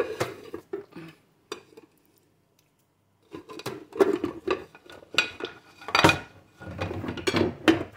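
Metal pots, pans and lids being moved on a gas hob: a few knocks in the first second or so, a short pause, then a busy run of clanks and clinks with some metallic ringing.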